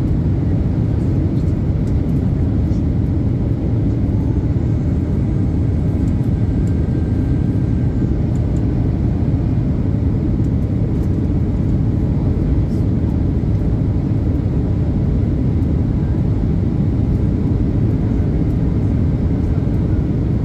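Steady low drone of an airliner heard from inside the passenger cabin: engine and airflow noise that runs on evenly without change.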